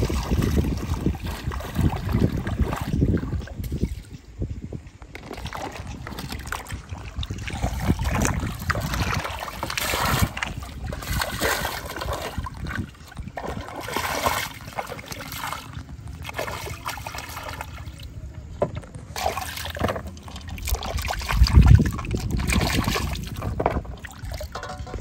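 Shallow river water splashing and sloshing as fruit is rinsed by hand in a plastic basket and a steel bowl, in irregular bursts over the steady run of the river.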